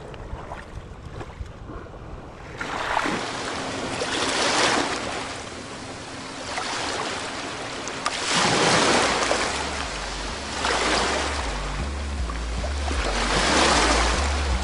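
Small waves washing onto a pebbly shore, one swell after another about every two seconds, starting a couple of seconds in. Low music tones come in under them about halfway through.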